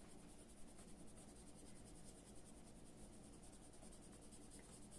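Faint, even scratching of a school colored pencil rubbed in small circles on paper, shading in a skin tone.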